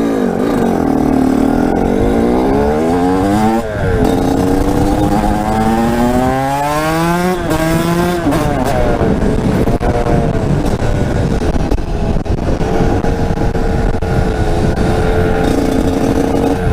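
TM 125 SMR supermoto's two-stroke single-cylinder engine being revved: its pitch climbs twice, once over about two seconds and then over about three, each time dropping off sharply, then a smaller blip, and it runs at a steady pitch near the end.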